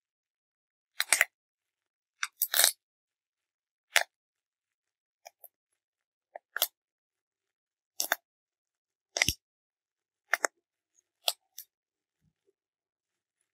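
Bubbles of plastic bubble wrap popped one at a time between fingers and thumb: about ten sharp pops, roughly one a second and unevenly spaced, a few coming in quick pairs.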